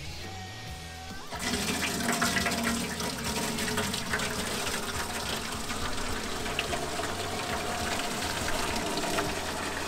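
Water gushing from an outdoor spigot into a welded aluminum tank, starting suddenly about a second and a half in and then running steadily as the tank fills.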